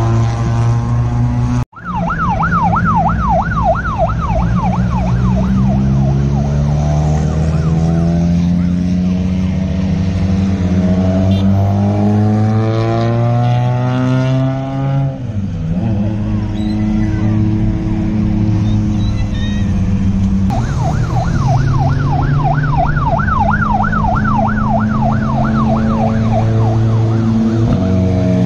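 Rally car engines droning on a road section, rising in pitch and then dropping sharply as a car passes about halfway through. A fast-warbling police siren sounds over them twice, near the start and again in the last third.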